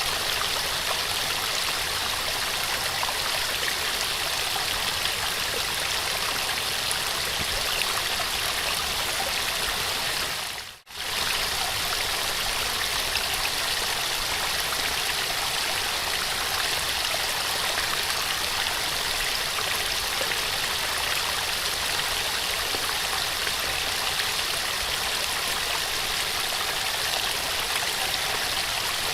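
Small waterfall: a steady rush of falling water, briefly fading out and back in about eleven seconds in.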